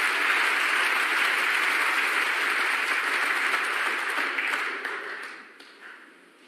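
Audience applauding a shot: steady clapping that fades away about five seconds in.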